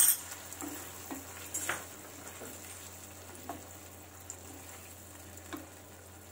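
Onion-and-capsicum Manchurian sauce sizzling in a nonstick pan as a wooden spatula stirs in freshly added cornflour slurry, with a handful of short scrapes and knocks against the pan. A sharp clink comes right at the start, and the sizzle slowly fades.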